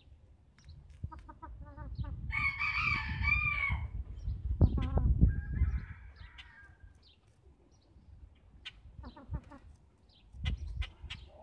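Chickens clucking, and a rooster crowing once for about a second and a half starting about two seconds in. A loud low rumble comes about five seconds in, and short sharp clicks near the end are scissors snipping a hen's crest feathers.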